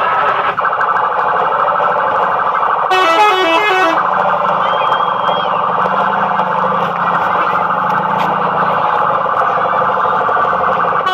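Telolet multi-tone musical horns sounding: a held, densely pulsing horn chord runs on, with a short run of stepping horn notes about three seconds in and again near the end.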